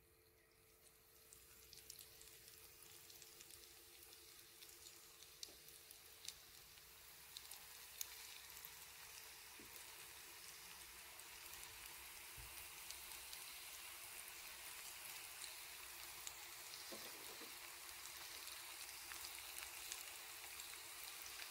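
Faint sizzling of battered onion rings deep-frying in hot oil, with scattered small pops and crackles that grow a little louder toward the end.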